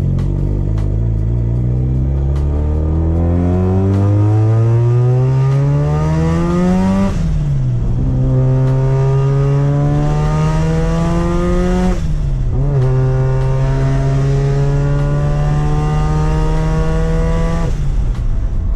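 Mazda RX-7 FD3S twin-rotor rotary engine under acceleration. The revs climb for about seven seconds and drop at an upshift, climb again and drop at a second upshift about twelve seconds in, then hold nearly steady before easing off near the end.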